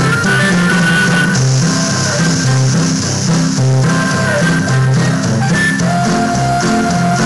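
Rock music with guitar over a bass line that steps from note to note, playing steadily at full level.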